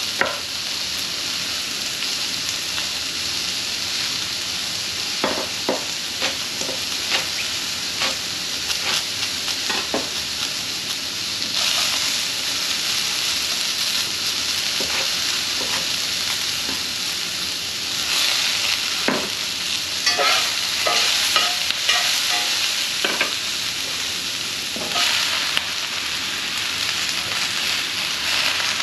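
Mushrooms sizzling steadily in oil in a skillet. Irregular sharp knocks run over the sizzle: a knife chopping green onions and bok choy on a wooden cutting board.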